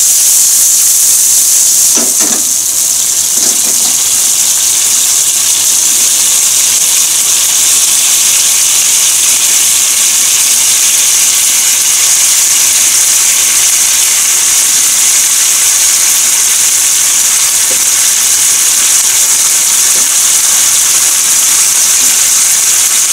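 Chicken pieces cooking in tomato juice in a frying pan, giving off a steady, loud sizzling hiss. There are a couple of light clinks about two and three and a half seconds in.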